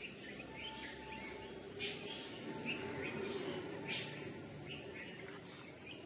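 Steady high-pitched insect drone, like crickets, with short bird chirps scattered through it and three sharper high notes about two seconds apart.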